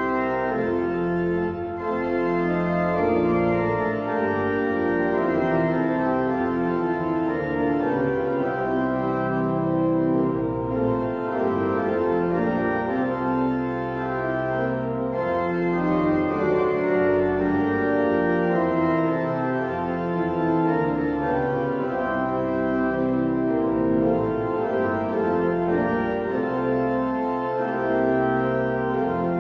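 Organ playing a Christmas carol in held chords, with a new chord every second or so and no break.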